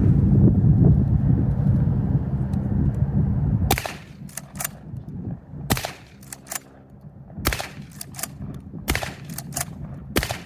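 A string of sharp shots from a Dickinson XXPR 12-gauge AR-style shotgun, irregularly spaced over the last six seconds. Before them a loud low rumble cuts off abruptly a little under four seconds in.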